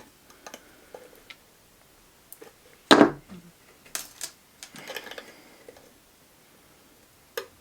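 Scattered metallic clicks and clinks of pliers working a bent metal trigger, with a sharp click about three seconds in and another about a second later.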